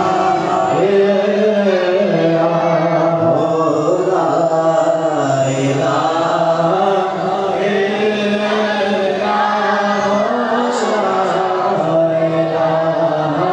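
Devotional Urdu singing: a long, drawn-out chant-like vocal line over steady sustained musical accompaniment.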